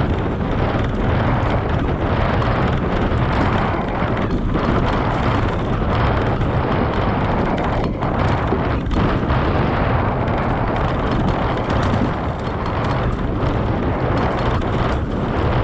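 Loud, steady wind buffeting on the microphone of a camera riding on a mountain bike, mixed with the rumble and rattle of the bike rolling over a dirt trail.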